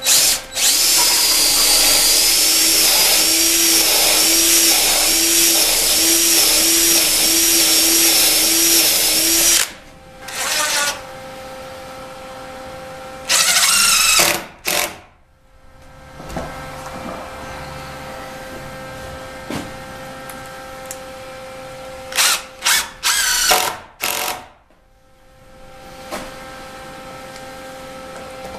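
Cordless drill running for about nine seconds, boring a pilot hole into a hardwood board, with a wavering high whine. Then a yellow DeWalt cordless impact driver drives screws in short bursts: once briefly about ten seconds in, a longer burst around fourteen seconds, and several quick bursts a little past twenty-two seconds.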